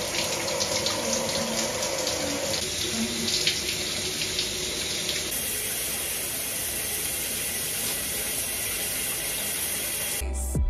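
Shower running: a steady spray of water from the showerhead, its sound shifting slightly about five seconds in.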